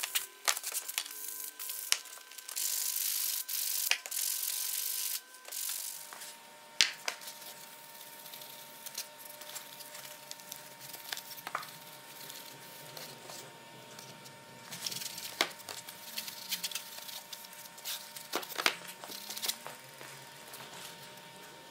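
Sandpaper scraped by hand along a steel cleaver blade in scratchy strokes for the first five seconds or so. Then quieter rag rubbing on the wooden handle, with scattered clicks and taps, over a faint steady whine.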